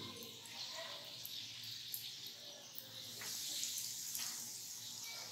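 Breaded spaghetti fingers sizzling in shallow hot oil: a steady frying hiss with scattered crackling pops. It grows louder about three seconds in, as a second finger is laid into the pan.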